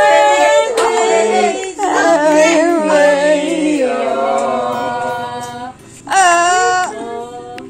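Voices singing, with long held notes, as a birthday song draws to a close; a short loud voiced call breaks in about six seconds in.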